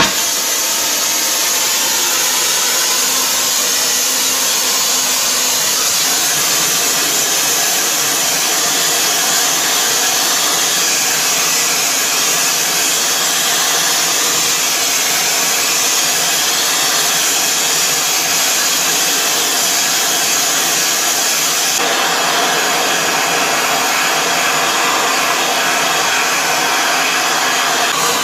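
Oxy-fuel gas welding torch flame burning with a loud, steady hiss, heating a steel part; its tone shifts slightly about two-thirds of the way through.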